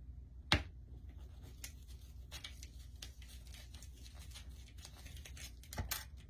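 A skewer being worked into a styrofoam pumpkin to open a hole for a pipe-cleaner ear: light scratchy rubbing and small ticks, with a sharp knock about half a second in and a couple of louder clicks near the end.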